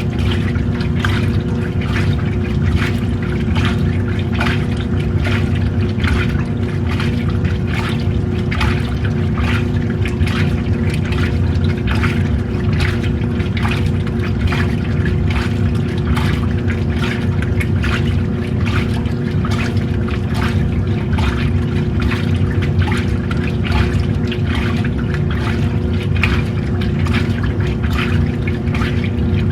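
Washing machine running a wash: its motor hums steadily while water and clothes slosh in the tub in a repeated churning rhythm.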